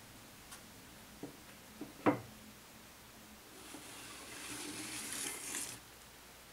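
A few soft knocks, the loudest about two seconds in, then a kamishibai picture card sliding out of its wooden stage frame: a paper-on-wood scrape that grows louder for about two seconds and cuts off suddenly.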